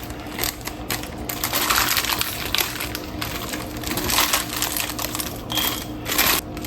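Crinkly plastic wrapper of a graham cracker sleeve rustling and crackling in irregular clicks as it is bitten and pulled open.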